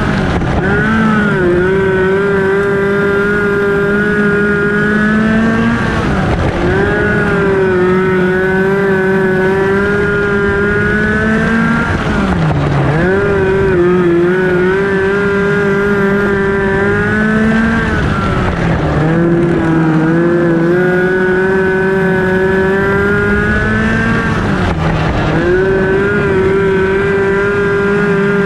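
A Focus midget race car's four-cylinder Ford Focus engine running hard, heard from on board the car. Its pitch dips briefly and climbs back about every six seconds.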